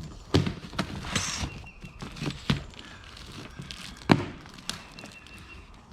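Boxes and jars of nails being handled: a series of separate knocks and clunks with a brief rustle about a second in, the loudest knock about four seconds in.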